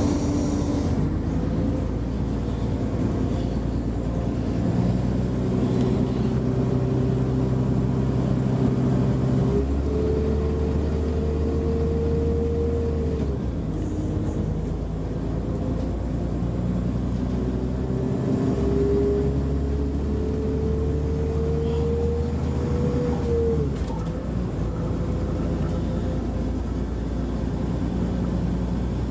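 Class 172 diesel multiple unit's underfloor diesel engine and transmission, heard from inside the carriage, pulling away from a station. An engine whine climbs slowly in pitch, then drops back as the gearbox changes up, twice over, above a steady running rumble.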